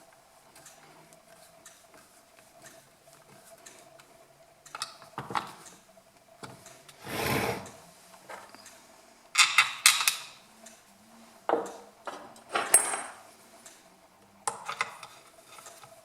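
Hand work on an Echo CS451 VL chainsaw's plastic and metal parts: scattered clicks and knocks as parts are handled and fitted. A longer sliding noise comes about seven seconds in, and several sharp clusters of clatter follow in the second half.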